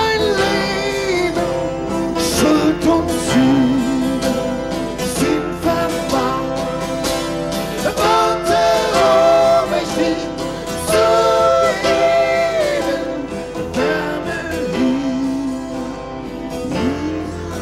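A band playing live: a man singing a melody in long, held notes over guitar accompaniment.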